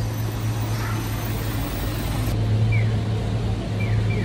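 City street traffic with a vehicle engine's steady low hum. A few short, high, falling chirps come in the second half.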